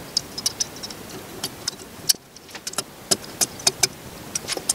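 Small metal parts of a turbocharger's variable-geometry vane mechanism clicking and clinking as they are handled and fitted by hand, in irregular sharp ticks.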